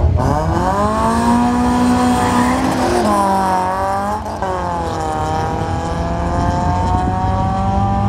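Two cars launching off a drag strip start line, one of them a Toyota Starlet running a 3S-GE BEAMS four-cylinder from an Altezza, their engines revving up through the gears. The pitch climbs, drops at gear changes about three and about four seconds in, then climbs again.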